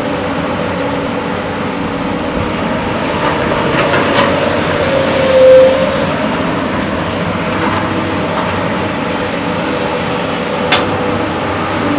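JCB excavator's diesel engine running steadily while digging, with a louder tone swelling briefly about halfway through and a single sharp metallic clank near the end.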